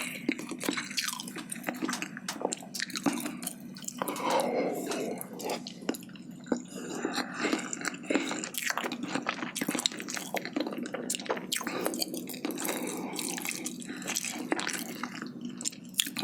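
Close-miked chewing with wet mouth smacking and clicking, a person eating spicy braised chicken (jjimdak) with glass noodles and rice in steady, irregular bites.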